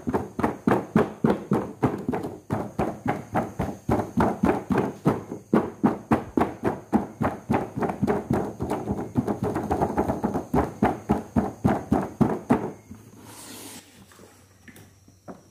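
Fingers tapping quickly and evenly on toy packaging, a fabric-covered box and a doll box's plastic window, about four taps a second. The taps stop after about thirteen seconds, and a brief rustle follows.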